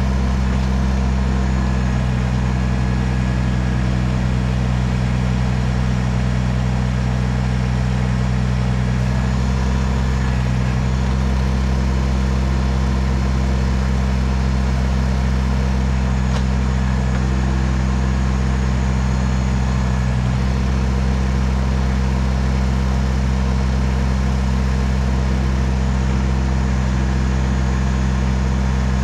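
Kubota BX compact tractor's small three-cylinder diesel engine running steadily at an even speed.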